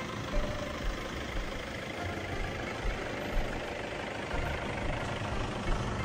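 A vehicle engine idling as a low steady rumble, with uneven low thumps over a street-noise background.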